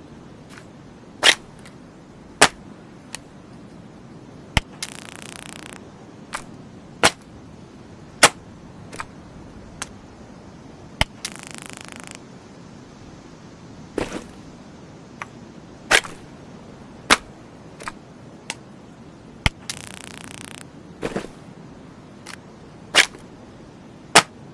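Stun gun discharging: about twenty sharp single snaps at irregular intervals, and three crackling electric arcs of about a second each.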